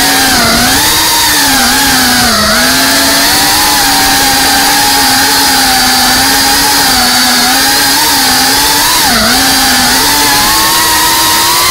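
FPV drone's motors and propellers whining loudly. The buzzing pitch dips and recovers with throttle changes about half a second in, around two and a half seconds in, and again near nine seconds.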